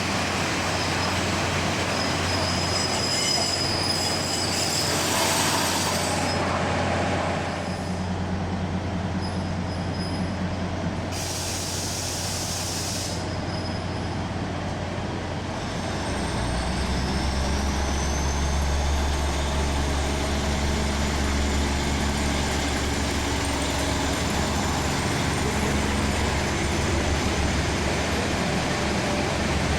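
Taiwan Railway train at a station platform: a steady low hum, two short bursts of hissing air about 5 and 11 seconds in, then from about 16 seconds in a heavier rumble with a faint rising whine, as of the train starting to move.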